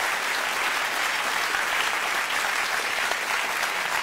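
Studio audience applauding steadily, a dense even clatter of many hands clapping, in response to a punchline.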